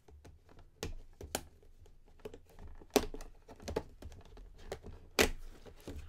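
A Funko Pop's plastic protector case and cardboard box being handled and opened: irregular crinkling with a few sharp plastic clicks, the sharpest about three seconds in.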